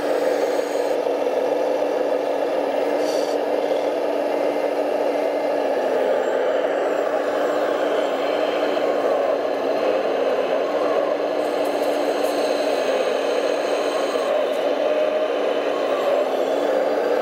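Hydraulic pump of a large RC Liebherr excavator running under load as it digs and swings through heavy mud: a steady whir whose pitch sags slightly now and then as the load changes.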